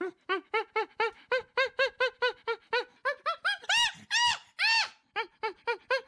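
Chimpanzee hooting: a rapid series of short calls, about four a second, each rising and falling in pitch. The calls climb higher toward two longer, louder calls about four seconds in, then break off briefly and start again.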